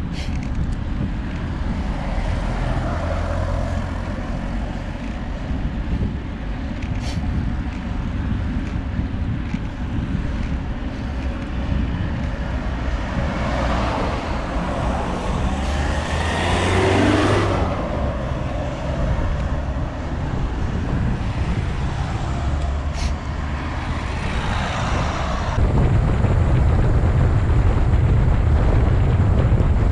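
Wind rushing over the microphone of a bicycle-mounted camera while riding on a road, with a car passing about halfway through, swelling and fading. The wind rumble gets louder near the end as the bike picks up speed.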